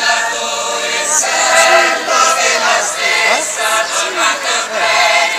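Many voices singing together in chorus, with long held notes.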